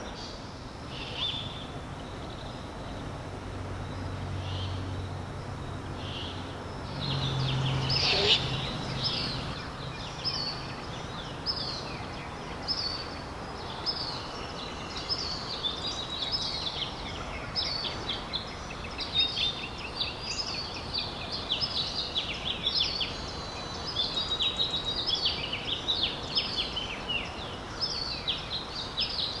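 Great horned owls hooting low a few times in the first third. Around them, a dawn chorus of songbirds chirps and sings, growing busier through the rest.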